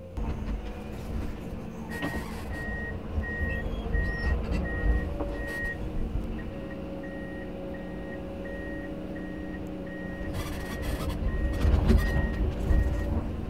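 Komatsu PC210 excavator's travel alarm beeping steadily, about two beeps a second, starting a couple of seconds in as the machine tracks to reposition, over its diesel engine running. A heavier low rumble swells near the end.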